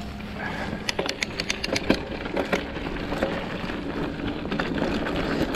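Mountain bike rolling down a rough dirt trail: a steady rush of tyres on loose dirt and gravel. Between about one and two and a half seconds in there is a quick run of rattles and knocks from the bike as it goes over bumps.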